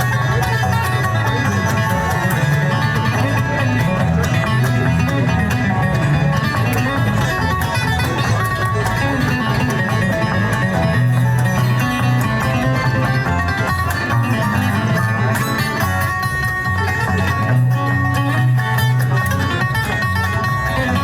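Bluegrass music played by a string band, with plucked guitar and banjo to the fore, running steadily without a break.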